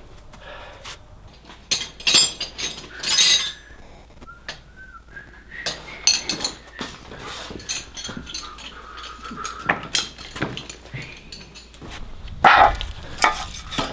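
A dog whining, a thin wavering tone, and giving a few short yelps, among scattered knocks.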